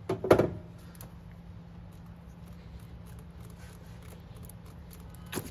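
A short metallic clatter about a quarter second in, then faint scattered clicks of metal parts being handled as a doweled camshaft end cap on the cylinder head is rocked by hand to work it loose, with a sharper click near the end.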